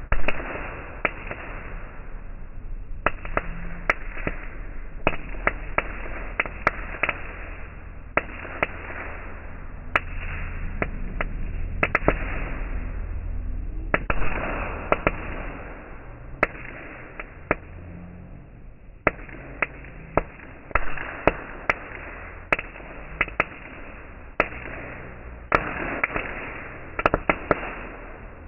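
Ground fountain firework burning: an uneven hiss that swells and dies back, broken by many sharp, irregular crackles and pops.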